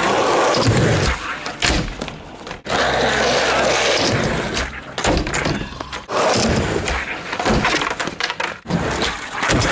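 Skateboard wheels rolling on rough asphalt, with sharp snaps and clatters as boards are popped for tre flips over a wooden pyramid and slap down or hit the ground. The sound stops suddenly and starts again several times.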